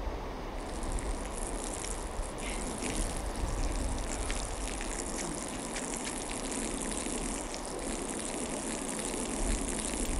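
A steady, hissing stream of liquid splashing, as of a man urinating onto the ground, starting abruptly about half a second in, over a low rumble.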